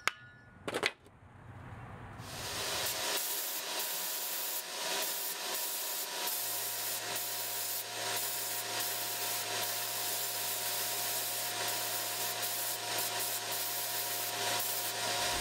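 Abrasive blast cabinet nozzle blasting a cast bronze helmet to strip leftover ceramic shell: a steady hiss that starts about two seconds in, with a low hum joining partway through. A single knock comes just under a second in.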